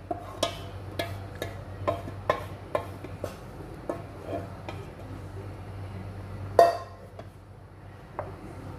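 Wooden spatula knocking and scraping against the rim of an aluminium pot, about two knocks a second, as the last of a thick blended soup is scraped out into another pot. One louder knock about six and a half seconds in, then only a few light clicks.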